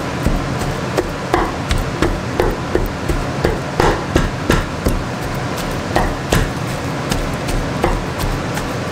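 Irregular knocks, two or three a second, as cooked beef, chana dal and potato are mashed into a coarse paste for shami kababs.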